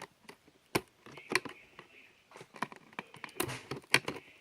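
Packaging of a boxed plastic toy figure being handled and pulled at: irregular clicks, knocks and rustles of cardboard and plastic, with a few sharper knocks about a second in and near the end.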